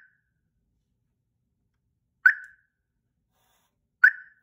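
Tuya Wi-Fi outdoor siren giving two short, high beeps, each with a quick fading tail, one about two seconds in and one near the end, while it is being set to pair an RF door sensor.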